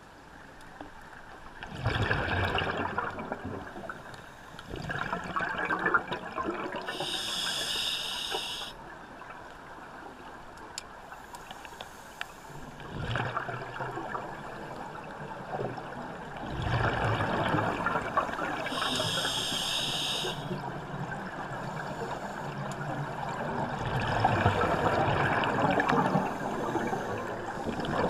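A scuba diver's breathing underwater through a regulator. Exhaled air bubbles out noisily in several long surges, and an inhaled breath hisses through the regulator twice in between.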